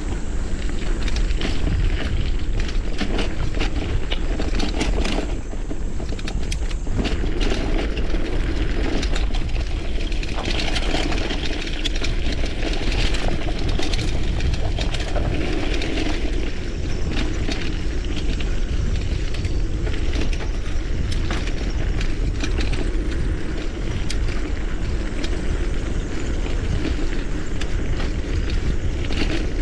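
Mountain bike riding a rough trail: a steady rumble of wind and tyres with frequent clicks and knocks as the bike rattles over the ground, and a cicada chorus droning behind it.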